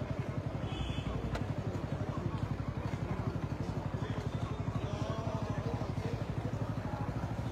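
Tractor's diesel engine idling, a steady rapid low throb.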